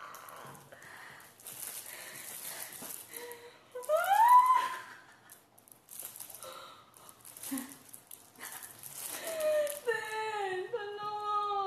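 A woman's excited wordless squeal that rises in pitch about four seconds in, and a long vocal note that wavers up and down near the end, between the crinkling rustle of a magazine's plastic wrapping being handled.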